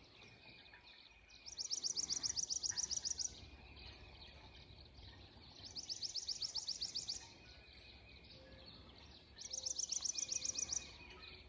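A songbird singing a rapid trill of quick, evenly repeated high notes, about a dozen a second, three times, each song lasting under two seconds and a few seconds apart, over faint outdoor background noise.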